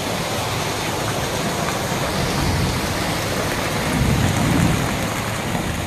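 Rain falling steadily, a continuous hiss, with a low rumble swelling about four seconds in.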